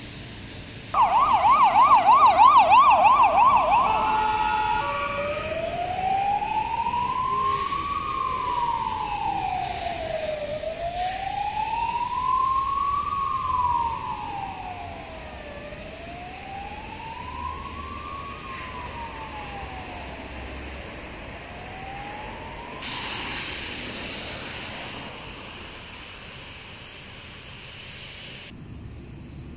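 Ambulance siren going by: about a second in it starts with a fast yelp, rising and falling several times a second, then switches to a slow wail that climbs and falls about every five seconds. The wail grows fainter as the ambulance moves away and stops just over three quarters of the way through.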